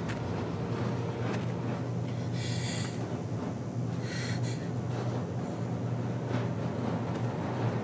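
A low, steady rumbling drone, with a woman's sharp, frightened breaths twice, about two and a half and four seconds in.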